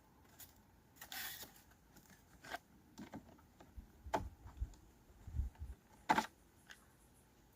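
Cardboard packaging of a mini fridge being handled and opened: scattered clicks and light knocks, a short rasping scrape about a second in, and a few soft low thuds in the middle.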